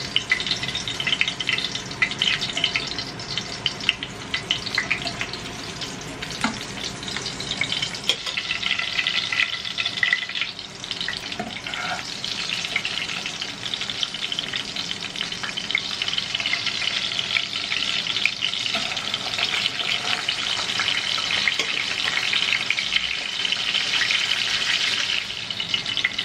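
Breaded pork cutlets (tonkatsu) frying in hot oil in a pan: a steady sizzle with scattered crackling.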